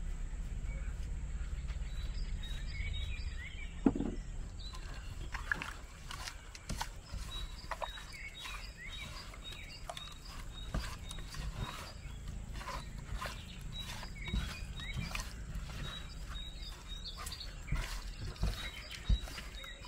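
Hands mixing raw eel pieces with spice powder in an unglazed clay pot: soft wet squishing and small clicks, with one sharp knock about four seconds in. Birds chirp in the background, one repeating a short high note.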